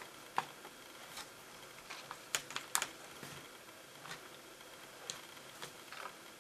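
Small screwdriver turning a screw into the plastic screen bezel of a Lenovo Ideapad Y470 laptop: a scatter of light, irregular clicks and ticks.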